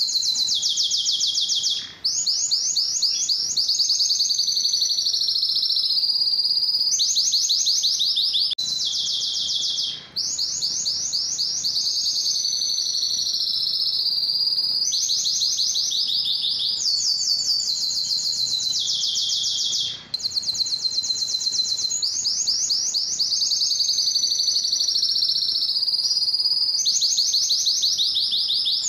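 Male domestic canary singing a continuous song of fast trills, each held for a second or two before switching to another trill, high-pitched, with three brief breaks.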